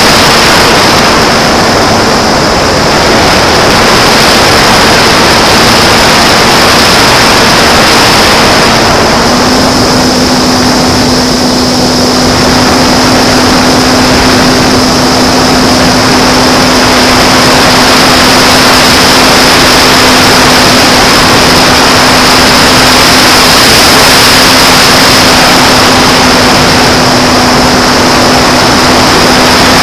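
J-Power Sky Surfer RC plane in flight, heard from its onboard mini camera: a loud, steady rushing noise with the steady drone of its electric motor and APC 5.5x4E propeller, which steps up a little in pitch about nine seconds in, and a thin high whine over it.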